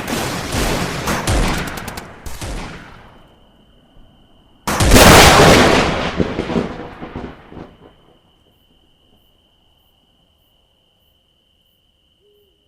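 Battle sound effect: rapid automatic gunfire and shots for the first three seconds, then a single loud explosion about five seconds in that rumbles away over some three seconds. A faint steady high tone runs underneath, and the last few seconds are near silence.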